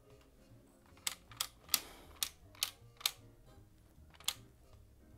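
Plastic Guess Who character flaps being flipped down one after another on the board: about seven sharp clicks over some three seconds, with faint background music underneath.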